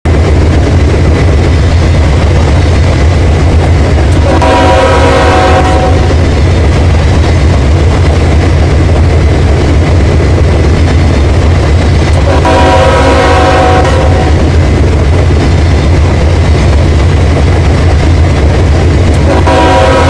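Train running at speed with a loud steady low rumble, its horn sounding a chord of several notes: two blasts of about a second and a half, some eight seconds apart, and a third starting near the end.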